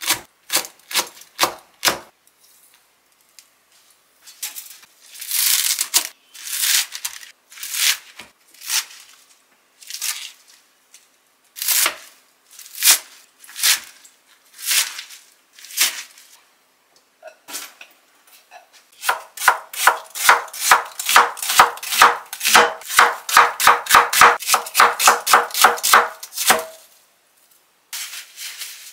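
Chef's knife chopping vegetables on a cutting board: quick slices through green chili peppers at first, then slower, crisp strokes through a bunch of garlic chives. About two-thirds of the way through comes a fast run of about four chops a second, lasting some seven seconds.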